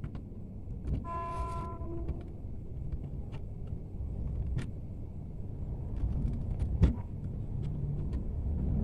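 Low rumble of a passing motor vehicle growing steadily louder, with a brief steady horn-like tone about a second in. Small clicks of combination pliers twisting stripped copper wires together sound over it.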